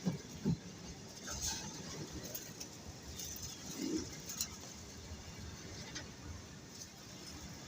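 A bird cooing in a few short calls, the clearest about four seconds in, over a faint low rumble.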